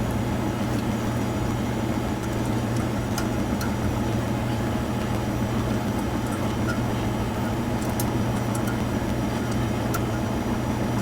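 A steady low mechanical hum that does not change, with a few faint clicks.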